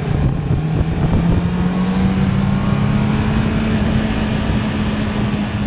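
Honda CB650R's inline-four engine running through its stock exhaust at steady revs, its pitch rising slightly about a second in and then holding.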